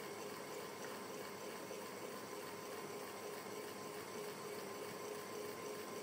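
Electric fan running steadily: an even rush of air with a faint steady hum.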